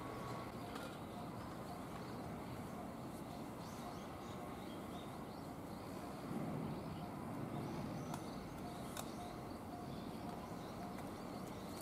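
Outdoor ambience: a steady background hiss with faint bird chirps now and then, and a brief louder low sound about six seconds in.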